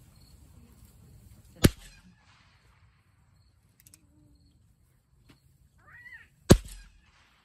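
Two gunshots about five seconds apart, each with a short echo trailing off. A brief high bending call comes just before the second shot.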